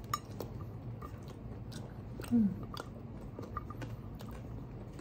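A person chewing and biting into a cupcake, with small scattered clicks and smacks of the mouth. A brief low murmur of a voice comes about two seconds in.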